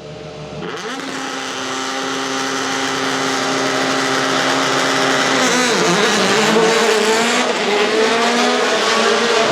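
Rally car engine at high revs, growing steadily louder as it approaches; about six seconds in the engine note drops briefly and then climbs again.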